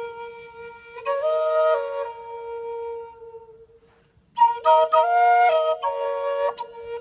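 Flute played solo, a steady drone note held beneath a melody with quick ornamented notes. It stops about three seconds in for a breath of a second or so, then comes back.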